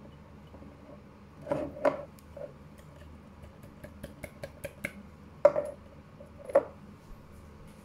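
Cut lemon and ginger pieces dropped and pushed into a glass jar, knocking and clinking against the glass. A few knocks come early, then a quick run of small ticks, then two louder knocks.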